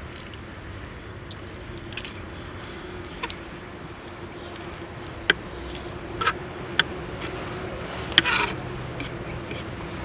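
Handling noises: scattered light clicks and knocks, with a short rustling scrape a little past eight seconds in, over a faint steady hum.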